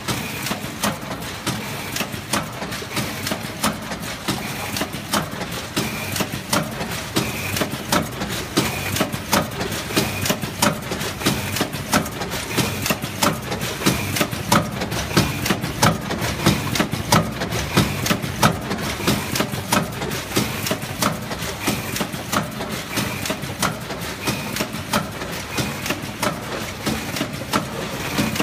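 Measuring-cup vertical bag packing machine running: a steady mechanical hum with many sharp clicks and knocks, and a short high tone recurring about once a second.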